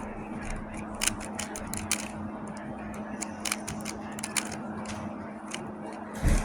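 Magnetic Moyu speedcube being turned fast during a speed solve: quick, irregular plastic clicks and clacks as the layers snap into place. A louder low thump comes near the end.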